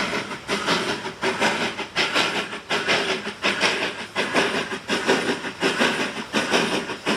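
Narrow-gauge steam locomotive working along, its exhaust chuffing in a steady rhythm of about two beats a second over a hiss of steam.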